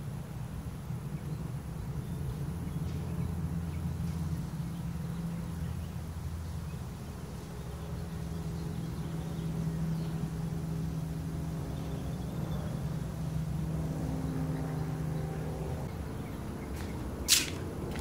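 Steady low hum, with a sharp click near the end.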